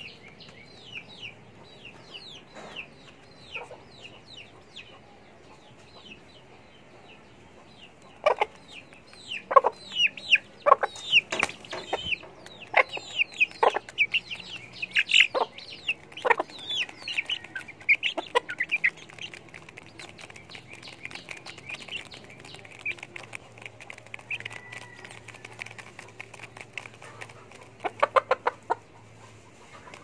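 Chickens feeding: a steady stream of quick, high, falling peeps, with bursts of short, sharp clucks between about eight and eighteen seconds in and again near the end.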